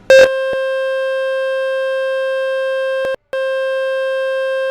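Loud, steady, buzzy electronic tone from the Fix My Speaker website, played to shake water out of a phone or laptop speaker. It starts with a click, cuts out briefly about three seconds in, then carries on.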